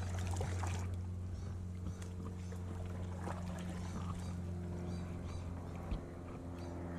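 A steady low mechanical hum with faint higher tones that come and go, and a few faint knocks.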